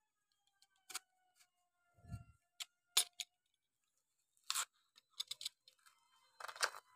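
Snap-off-blade utility knife scraping and slicing through a cardboard mailer envelope in short, sharp strokes, with the card rustling and a dull thump about two seconds in.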